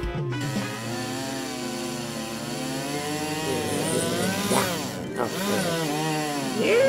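A buzzing small-motor drone, its pitch wavering slowly throughout, with quick swoops up and down in the second half and a rising-then-falling glide at the end.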